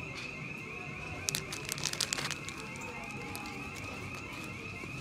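Plastic-packaged merchandise crinkling and rattling against metal display peg hooks in a quick cluster of sharp clicks, a little over a second in. Under it is a steady, high, warbling electronic tone.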